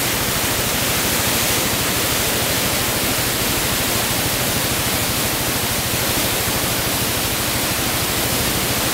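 A river in flood rushing through whitewater rapids over bedrock, a loud, steady rush of water. The river is running high, washing over rock that is normally out of the water.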